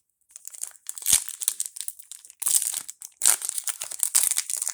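Wrapper of a Topps trading-card pack crinkling and crackling as it is handled and torn open, in irregular surges.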